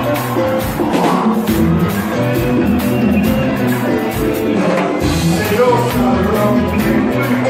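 Live cumbia band playing with a steady beat, and a man's voice singing into a microphone over it.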